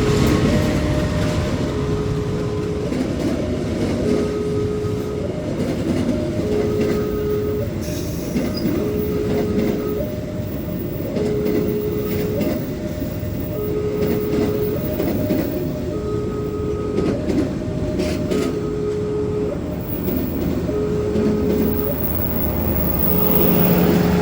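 A train running past with a dense rumble of wheels on the rails, while an electronic level-crossing alarm alternates steadily between a low and a high note, each held just over a second.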